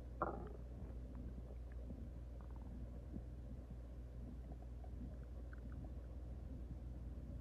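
A woman's stomach growling, recorded up close: faint, scattered gurgles over a steady low hum, with one short, louder gurgle just after the start.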